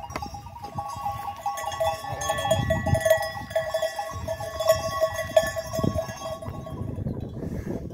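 Bells worn by a flock of sheep and goats clinking and ringing as the animals move off to graze, with wind rumbling on the microphone.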